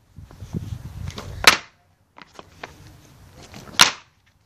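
Skateboard wheels rolling on concrete, ending in a sharp clack of the board about a second and a half in; after a short pause come a few lighter knocks and a second loud clack of the deck hitting the ground near the end.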